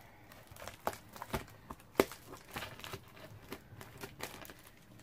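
Toy packaging crinkling and crackling as it is worked open by hand, with scattered clicks and one sharper snap about two seconds in.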